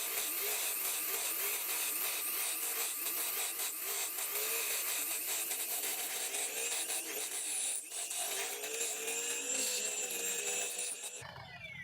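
Wood spinning on a homemade lathe with a turning tool or abrasive scraping against it: a dense, scratchy hiss of wood being cut away, over a wavering hum. It stops near the end.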